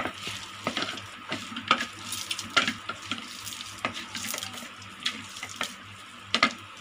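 A hand squishing and mixing a wet onion and gram-flour pakora mixture in a metal bowl: irregular wet squelches with soft knocks against the bowl.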